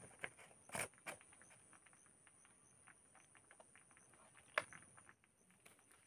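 A few faint, scattered clicks and taps of plastic handling on a homemade PVC combustion gun, a small cluster in the first second and the sharpest one about four and a half seconds in, over a faint steady high whine.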